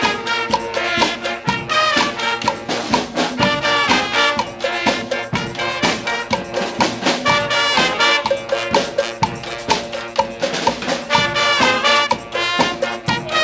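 Street brass band playing: trumpets and trombones over a steady drum beat.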